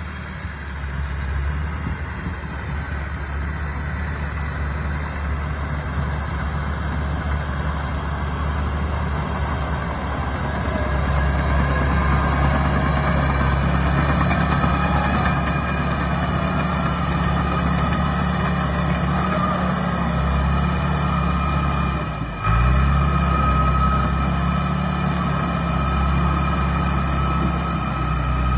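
John Deere 650H LT crawler dozer's diesel engine running steadily as the machine travels on its tracks, growing louder as it comes closer. About two-thirds of the way through, the engine note drops briefly and then picks back up.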